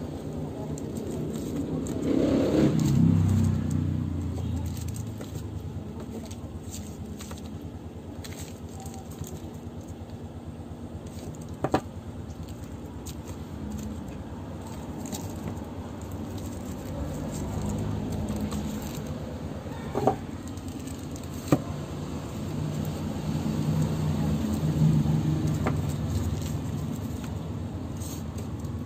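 Bars of wrapped laundry soap being handled and set into a plastic organizer tray, with three sharp clicks as they knock against the plastic. Under it runs a steady low hum that swells twice, like a passing vehicle.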